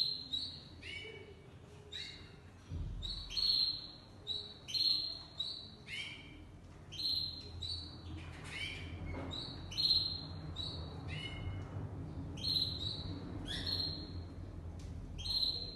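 Domestic canaries calling: short chirps repeated over and over, a few each second, most of them quick downward-sweeping notes.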